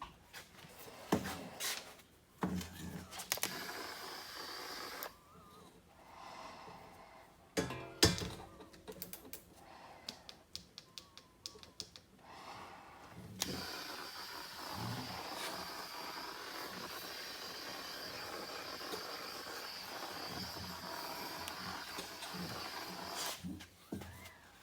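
Scattered clicks and knocks of handling. About thirteen seconds in, a steady hiss starts suddenly and runs for about ten seconds before stopping.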